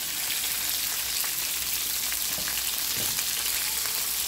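Crawfish frying in hot oil in a frying pan: a steady sizzling hiss with small scattered crackles.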